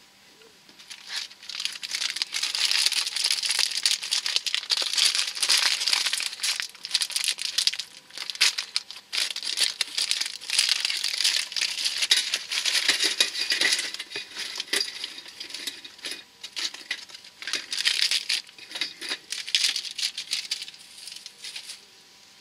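Foil biscuit wrapper being unwrapped by hand: a long run of crinkling and crackling that starts about a second in, dips briefly now and then, and stops just before the end.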